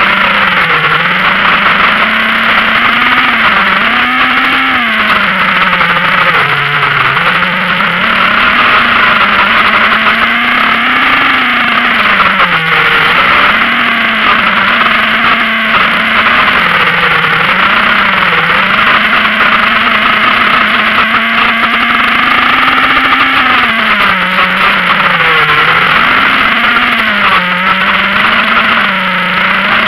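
Motor and propellers of a small radio-controlled aircraft, heard from its onboard camera: a steady drone whose pitch rises and falls every few seconds as the throttle changes.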